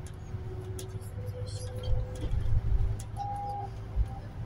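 City bus interior while driving: steady low rumble from the engine and road. Faint steady tones run underneath, and a short beep sounds about three seconds in.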